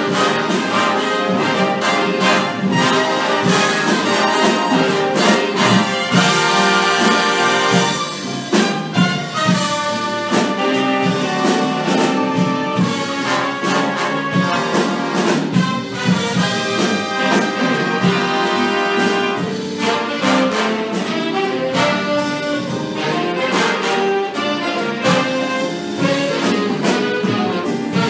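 Jazz big band playing full ensemble: trumpets, trombones and saxophones over a rhythm section with drums, recorded live from the room rather than through a sound board.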